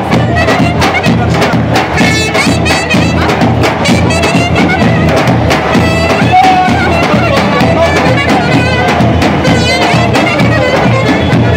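Street band playing lively traditional Turkish dance music: a clarinet carries the melody over a steady beat on a double-headed drum struck with a stick, with a plucked banjo-like lute underneath.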